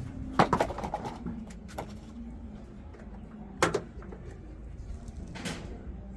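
Handling knocks and clicks from parts of a top-loading washing machine being taken apart: a quick cluster of clatters about half a second in, a single sharp knock near the middle, and a softer one near the end.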